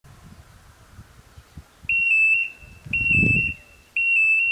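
Level crossing warning bell starting up about two seconds in: a high tone repeating about once a second. It signals that the crossing has activated for an approaching train.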